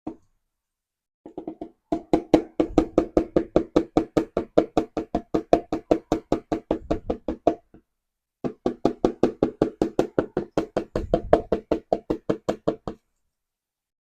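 Rapid, even knocking, about five knocks a second, each with a short low ring, in two runs with a pause of about a second partway through.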